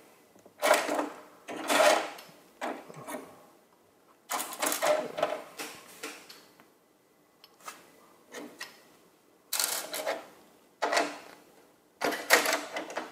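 Small plastic toy parts clattering and rattling as they are handled and searched through, in about eight sudden bursts of a second or less with quiet gaps between them.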